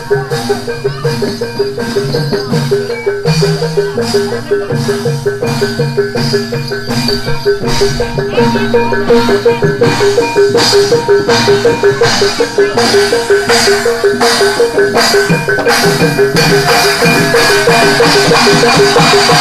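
Javanese gamelan accompaniment for barongan: metal-keyed percussion playing a fast, repeating pattern over steady hand-drum strokes, getting louder toward the end.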